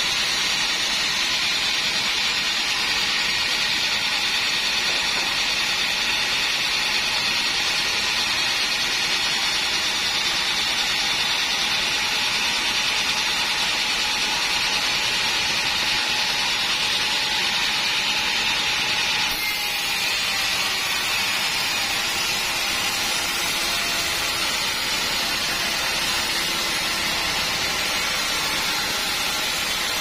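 Large vertical band sawmill ripping a teak log, a steady high-pitched hiss of the blade cutting through the wood. The sound drops slightly and changes about two-thirds of the way through.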